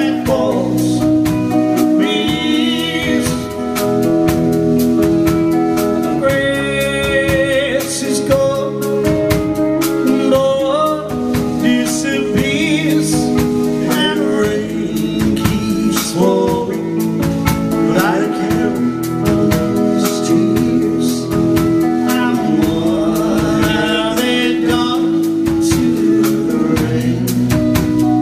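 Live band performance: electric guitars, bass guitar and drums accompanying a singer.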